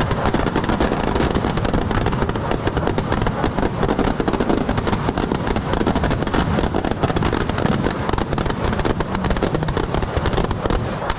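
Firecrackers packed inside a burning Ravana effigy going off in a dense, unbroken crackle of rapid bangs and pops.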